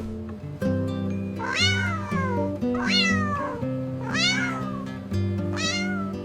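A cat meowing four times, each meow rising then falling in pitch, over soft background music with held notes.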